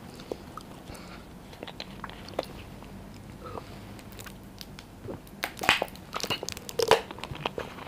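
Plastic drink bottle's screw cap twisted open with a few small clicks, then gulping and swallowing as the drink is taken straight from the bottle, loudest about five and a half to seven seconds in.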